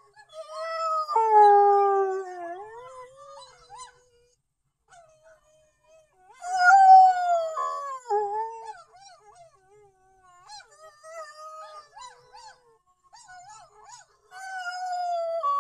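Black and tan coonhound howling: two loud, long howls that slide down in pitch, one starting about a second in and one about six and a half seconds in, with fainter short wavering calls between them and another howl starting near the end.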